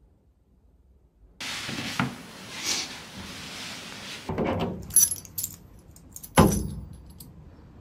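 A bunch of metal keys on a keyholder jangling and clinking as it is picked up and handled, with a louder knock about six and a half seconds in. Before that there are a few seconds of rustling handling noise.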